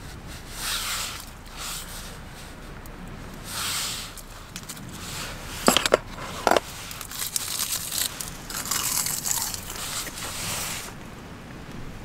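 Rustling and scraping of something being handled, in several swells, with a few sharp clicks about six seconds in.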